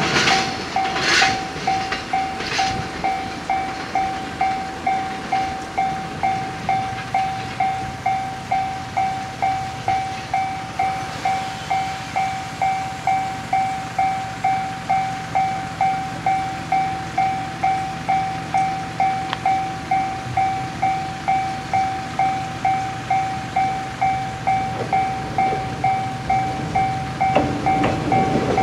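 Railway electronic warning bell ringing in an even, repeating ding-ding pattern of about two strikes a second.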